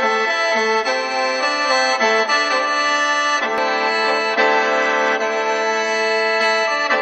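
Khaen, the bamboo free-reed mouth organ of Isan and Laos, playing a continuous melody over steady held drone notes.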